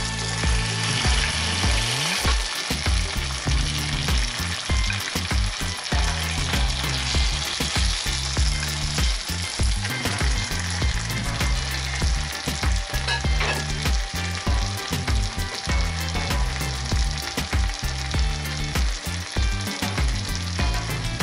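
Tomato rice and chicken drumsticks sizzling in a hot frying pan, with small scrapes and taps as the drumsticks are pushed off a plate and arranged with a wooden spatula.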